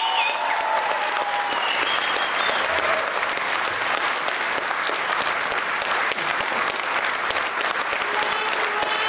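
Audience applauding, a dense steady clapping that holds its level throughout, with a brief high tone about two seconds in.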